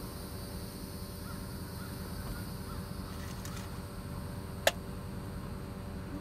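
Canada geese calling faintly and briefly over the steady low hum of an idling car engine, with one sharp click about three-quarters of the way through.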